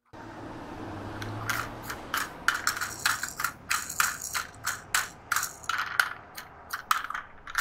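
A red toy pickup truck being handled and turned in the hand: a string of short plastic-and-metal clicks and light scrapes, roughly three a second and irregular, over a steady low background noise.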